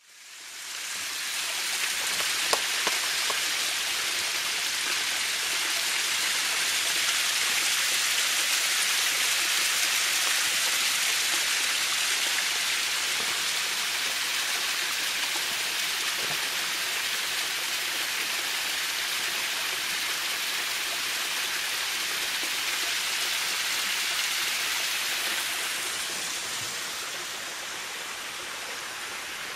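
Waterfall running steadily, a dense hiss of falling and splashing water. It fades in at the start and grows a little quieter a few seconds before the end, with a couple of faint clicks about two and a half seconds in.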